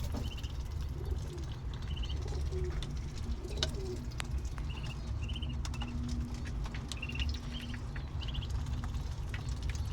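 Ducklings peeping: short high chirps repeated every second or so, over a steady low rumble.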